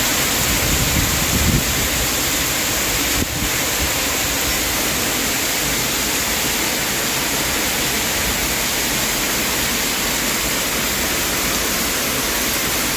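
Heavy storm rain pouring down steadily, a dense even hiss.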